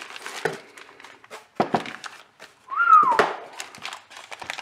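Clear plastic bag crinkling and rustling, and packaging rubbing, as a brake caliper sealed in it is pulled from its cardboard box. About three seconds in there is one short squeak that rises in pitch and then falls, the loudest sound here.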